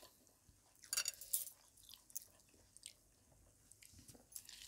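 Close-miked eating with the hands: soft chewing and wet mouth clicks, with a cluster of crackly clicks about a second in.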